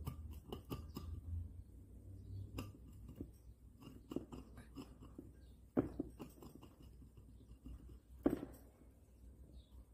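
A guinea pig gnawing on the painted wooden sticks of its hideout: a run of irregular short scraping bites, with two louder crunching bites about six and eight seconds in.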